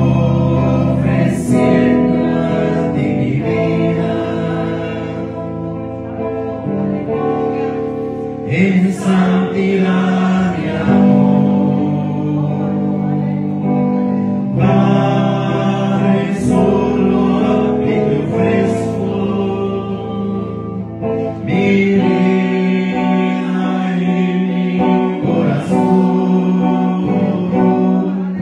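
A man singing a Spanish-language worship song into a microphone over backing music.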